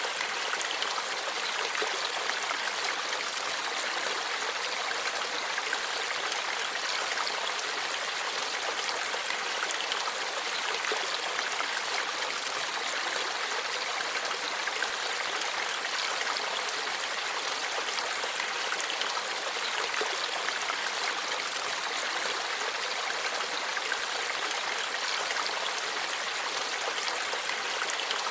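Forest stream flowing and babbling steadily, an even rush of water with little low rumble.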